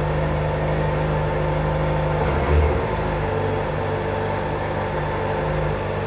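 Kawasaki Ninja ZX-4RR's inline-four engine running at a steady speed while ridden, with a brief low thump a little over two seconds in. Its drive chain is freshly adjusted and no longer clatters.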